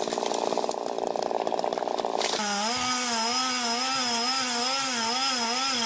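Chainsaw running under load through wood. About two seconds in, the sound changes abruptly to the saw engine screaming at high revs, its pitch wavering rapidly up and down.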